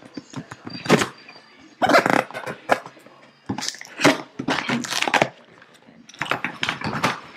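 Packing tape being slit and ripped off a cardboard shipping box, and the cardboard flaps pulled open: a run of short tearing and scraping noises.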